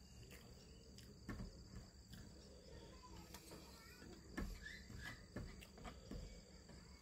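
Quiet hand-eating sounds: fingers picking rice and chicken off plates and soft chewing, with a few light taps, the sharpest about a second in and midway, over a faint steady insect drone.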